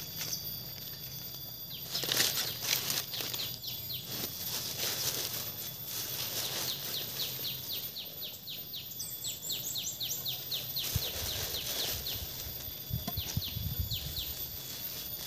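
Rustling and scraping as manure is handled and spread around the base of a plant, with a few soft knocks near the end. Behind it are a steady high insect drone and a rapid series of short repeated chirps.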